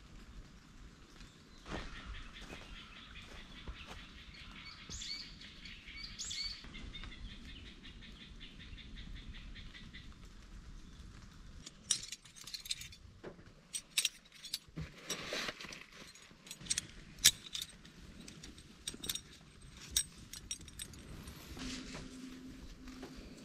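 Birds chirping through the first several seconds. Then come a run of sharp clicks and rustling as coiled guy ropes are lifted out of packed camping gear and handled.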